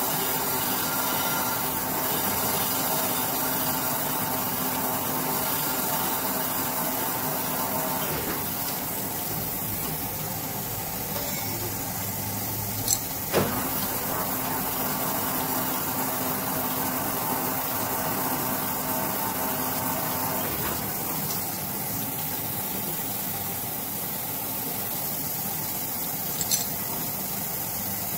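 Crankshaft grinding machine running: the grinding wheel works a Suzuki Swift crankshaft journal under flowing coolant, a steady machine hum with a hiss of coolant and grinding. A couple of sharp clicks come about halfway through.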